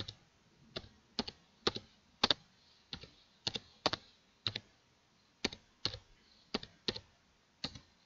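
Computer keyboard being typed on: separate sharp keystrokes at an uneven pace, roughly two a second, some in quick pairs, the last one near the end.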